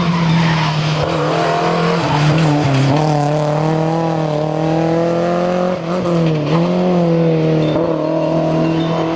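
Historic rally car's engine held at steady high revs, pitch dipping briefly a few times, with tyre squeal and skidding noise.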